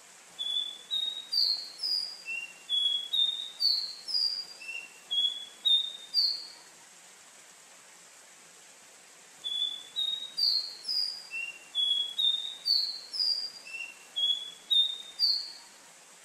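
Caboclinho, a small Sporophila seedeater, singing two phrases of about six seconds, each a run of a dozen or so short clear whistled notes that slide up or down, about two a second, with a pause of about three seconds between them. A faint steady hiss lies underneath.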